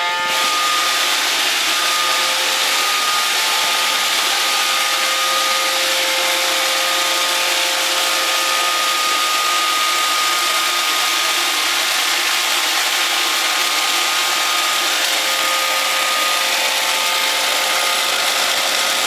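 iRobot Roomba 530 robot vacuum running its vacuum and brush motors: a steady whir with a steady high whine over it, as it drives back to its dock.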